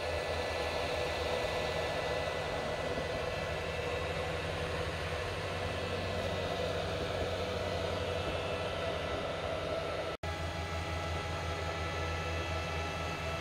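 Anycubic Kobra Max 3D printer running mid-print: a steady whirring hum of its cooling fans and motors with a few faint steady tones, cutting out for an instant about ten seconds in.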